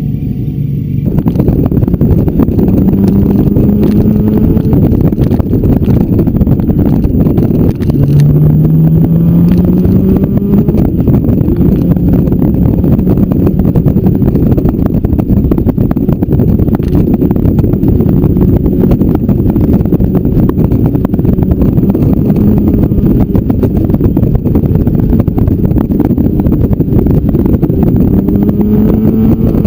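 Motorcycle engine heard from an onboard camera under heavy wind rush on the microphone, which comes in about a second in as the bike gets under way. The engine pitch rises several times as it accelerates.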